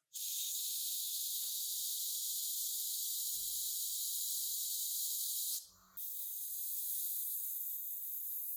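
Paint spraying from a nozzle in a steady high hiss, cutting off briefly about five and a half seconds in and then starting again.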